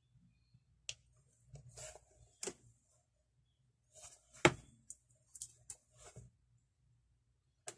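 Hard plastic casing of a handheld Vingcard service terminal handled and pressed in the hands: a string of scattered clicks and short scraping rustles, the sharpest click about four and a half seconds in.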